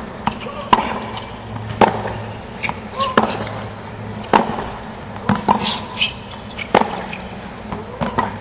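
Tennis rally on a hard court: a sharp racket-on-ball hit every second or so, over a steady background hum.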